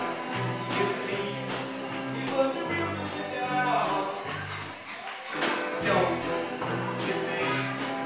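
Live band playing an upbeat song: a man singing to electric guitar, backed by a drum kit and bass guitar.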